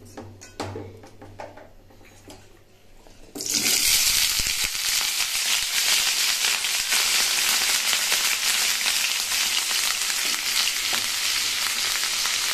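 Diced raw potatoes dropped into hot oil tempered with nigella seeds in a kadai: a few faint crackles of oil, then a sudden loud sizzle about three and a half seconds in that goes on steadily as the potatoes fry.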